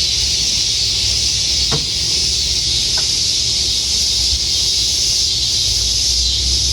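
Steady, loud, high-pitched chorus of evening insects, an unbroken hiss-like drone. Two faint ticks sound about two and three seconds in.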